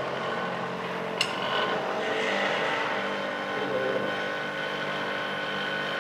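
Steady machine hum with a continuous pitched drone, and a single sharp click about a second in.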